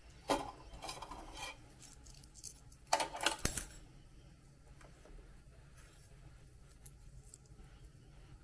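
Small metal keyring with a tiny tool on it jingling and clinking against the plastic basket of an ultrasonic cleaner as it is picked up, with a few clinks in the first second or so and the loudest burst of jingling about three seconds in.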